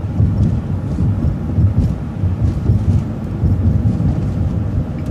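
Transit bus driving along, a steady low rumble of engine and road noise heard from inside the bus.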